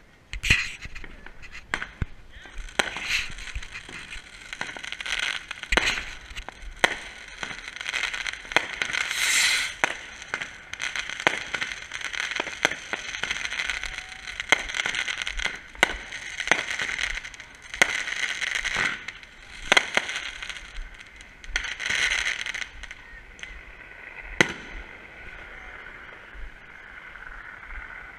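Aerial fireworks going off: many sharp, irregularly spaced bangs with crackling between them. The last bang comes about four seconds before the end, leaving only faint crackle.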